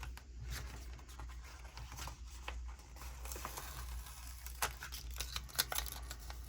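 Sticker sheets being handled and a paper sticker peeled from its backing: light rustling with scattered small crackles and ticks, over a faint steady low hum.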